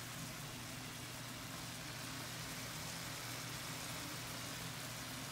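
Chicken liver and gizzard adobo simmering in a pan, a steady soft hiss of sizzling sauce over a steady low hum.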